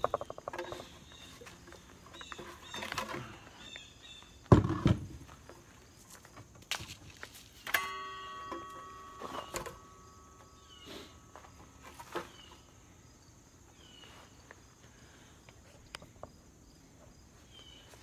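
Wooden boards being handled and set down: a few knocks and thuds, the loudest about four and a half seconds in. A steady ringing tone holds for about four seconds after a knock near the eight-second mark, with faint chirping behind.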